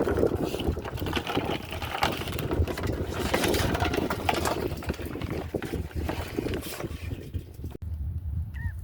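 Water sloshing and splashing with knocks and handling noise, wind rustling on the microphone. Near the end a few short chirps sound.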